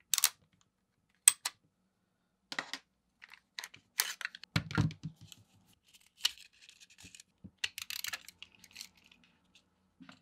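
Hi-Capa airsoft pistol being taken apart by hand: scattered metal clicks, scrapes and light knocks as the slide comes off and the recoil spring and guide plug are slid off the guide rod, with one heavier knock about four and a half seconds in.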